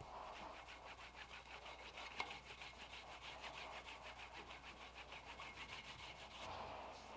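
Strip of cloth pulled quickly back and forth, shoe-shine style, across a mammoth ivory and ironwood knife handle to polish it: a faint, even rubbing of several strokes a second that stops near the end.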